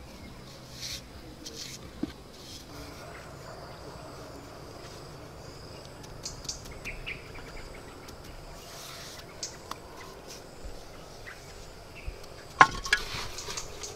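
Hollow clay bricks being set into wet mortar by hand: scattered knocks and scrapes, the loudest a sharp knock near the end followed by about a second of scraping. A faint steady insect drone sits underneath.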